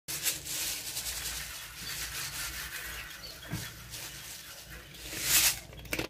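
Grain pouring and pattering out of a clear plastic bag, with the plastic crinkling as it is shaken, and a louder burst of rustling near the end.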